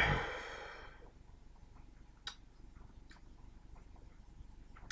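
A man's voiced exhale trails off in the first second after chugging a can, then faint breathing with two small clicks, about two seconds in and again near the end.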